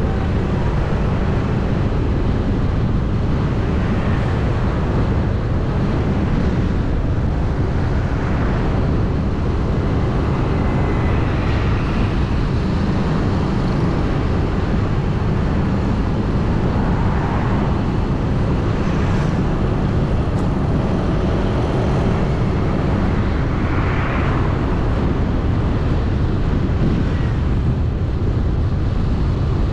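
Steady low rumble of a vehicle driving along a paved street, with wind buffeting the microphone and a few faint swells from passing traffic.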